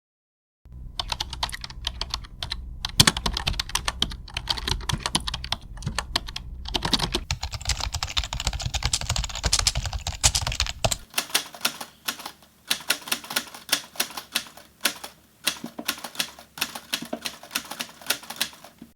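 Computer keyboard typing: fast, dense clicking of keys, then from about eleven seconds in slower, more separate keystrokes.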